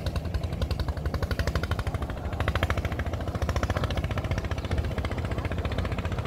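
Diesel engine running steadily with a rapid, even chugging.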